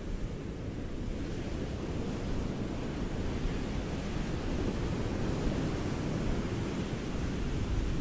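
Ocean surf: a continuous deep wash of waves with no distinct strikes, swelling slightly after about a second.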